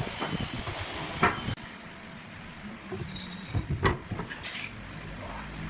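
Scattered knocks and clinks of hand work on wooden drawer parts: a run of sharp knocks with a strong one just after a second in, then, after an abrupt drop in background, a few lighter knocks and a bright clink near four seconds.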